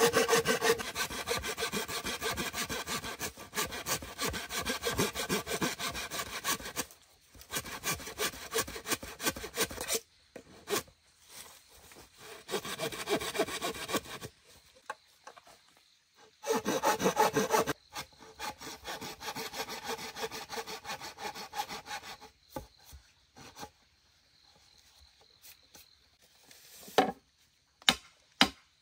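Wood being sawn by hand in several bouts of quick, even back-and-forth strokes, with short pauses between bouts. Near the end the sawing stops and only a few scattered knocks remain.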